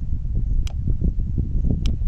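Two sharp metal clicks as a 5 mm hex key works the Allen bolts out of a motorcycle's rear brake caliper, over a steady low rumble.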